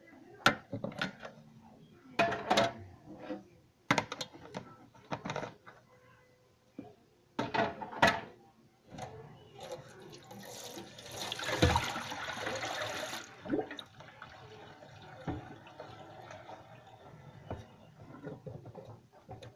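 Plastic food containers and a plastic pitcher knocking and clattering against a stainless steel sink as they are washed, with a sink tap running for about three seconds midway.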